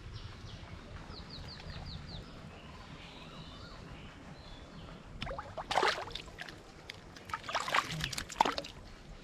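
Hooked catfish splashing at the water surface as it is pulled in on a line, in two loud bursts of about a second each, starting about five seconds in. Before that, faint bird chirps, including a quick run of short high chirps.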